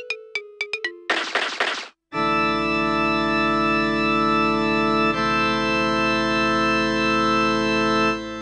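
Music: a run of quick, short keyboard notes, a brief burst of noise, then a loud held organ chord that shifts to another chord about halfway and breaks off near the end, ringing away.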